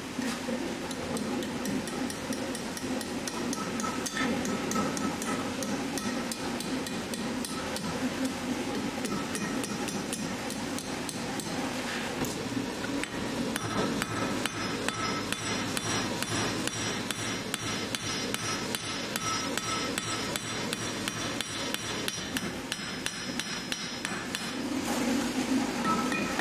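A blacksmith's hammer beating glowing-hot steel on an anvil in a long run of quick blows, the anvil ringing with each strike as the hot metal is forged into shape.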